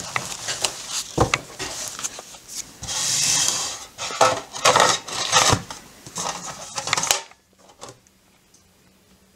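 A stack of postcards being handled and slid into a tin box: card rustling and sliding, with sharp clicks and knocks against the tin and a longer scraping slide a little after three seconds. The sound cuts off suddenly about seven seconds in, leaving only a faint hum.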